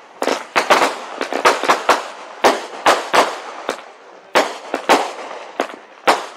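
Aerial fireworks going off in a rapid, irregular series of sharp bangs and pops, about two to three a second, each with a short echoing tail.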